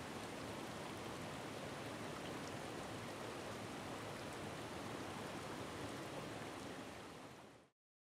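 Steady rush of a mountain trout stream's flowing water, an even hiss with no distinct splashes, fading out quickly near the end.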